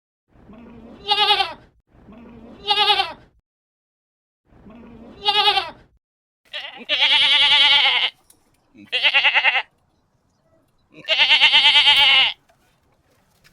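A goat bleating repeatedly: three short calls that start low and rise, then three longer, louder bleats with a fast quaver in the pitch.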